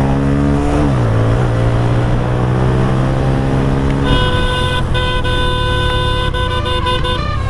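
Motorcycle engine running on the move, its note dropping about a second in and then holding steady. From about four seconds in a vehicle horn sounds for about three seconds, with a short break.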